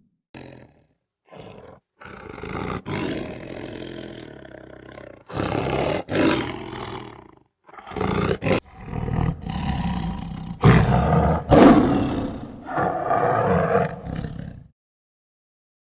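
A big cat, lion or tiger, giving a run of roars and growls in separate calls with short breaks between them.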